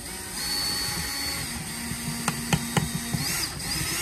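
Cordless drill running with a 9/64 bit against a pop rivet in a steel power-supply case. The rivet spins with the bit instead of being cut, and there are several sharp clicks about halfway through.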